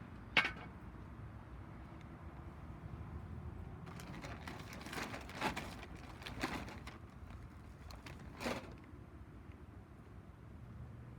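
A few sharp knocks and clinks, like hard objects set down or handled: one about half a second in, a cluster of several between four and seven seconds, and one more near the end, over a low steady hum.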